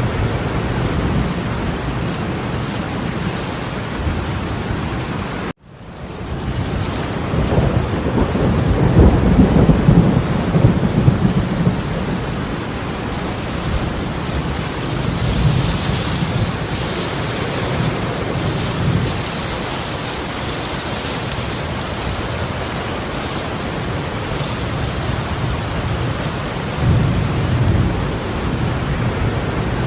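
Heavy torrential rain falling in a steady, loud hiss. About eight seconds in, a low rumble swells up over it and dies away over a few seconds. The sound cuts out for an instant about five and a half seconds in.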